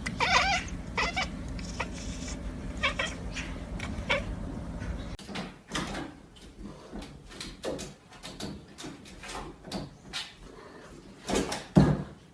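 A cat meowing with short calls that bend in pitch, loudest in the first second. After a change of scene, a run of light knocks and clicks follows, with a couple of louder thumps near the end.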